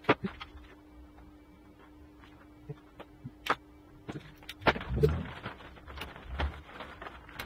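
Hands wiring a rack-mount enclosure: scattered clicks and knocks of cables, plugs and tools being handled and set down on a wooden workbench, with a louder clatter about five seconds in.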